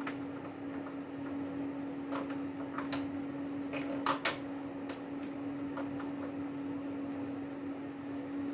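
Metal clinks and knocks as a 10 mm stainless steel plate and a clamp are fitted into a drill-press vise mounted on a lathe, about half a dozen sharp strikes in the first half, the loudest about four seconds in, over a steady hum.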